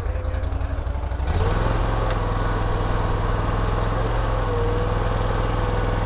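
Boxer mini skid steer's engine running steadily, getting louder about a second in as the machine lifts the flail mower on its loader arms.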